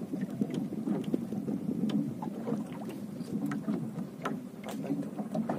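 Water lapping against the hull of a small boat, a steady low wash scattered with many short light clicks and taps.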